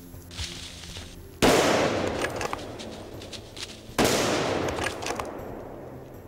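Two hunting-rifle shots about two and a half seconds apart. Each is a sharp crack followed by a long echo through the woods that fades over about two seconds.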